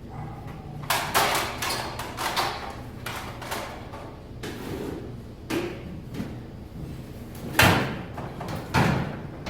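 Irregular knocks and clatter of hard objects being handled, the loudest knock about three-quarters of the way through, over a steady low hum.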